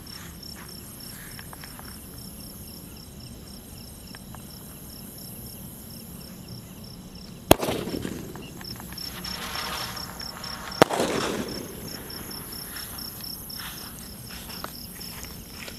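A 'shooting star' firework going off: a sharp bang about halfway in, a hiss, then a second sharp bang about three seconds later. Crickets chirp steadily throughout.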